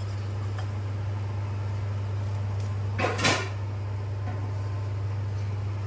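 Steady low hum throughout, with one short knock about three seconds in.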